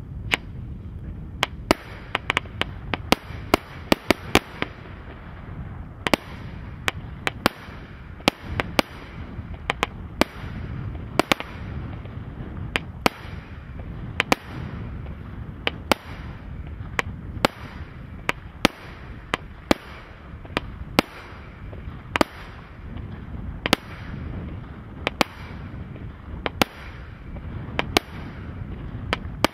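Celtic Fireworks Hyperglow firework cake firing shot after shot: sharp bangs of bursting shells, unevenly spaced, about one or two a second.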